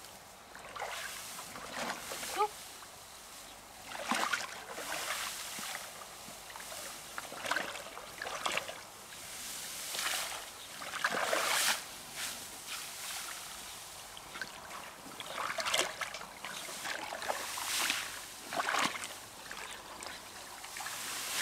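Water sloshing and splashing in short, irregular bursts every second or few, over a faint steady hiss.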